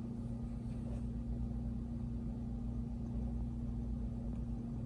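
Steady low hum with a faint even hiss: room tone.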